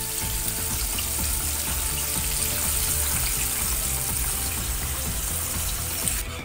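Breaded chicken pieces frying in a pan of hot oil: a steady, loud sizzle that cuts off suddenly just before the end.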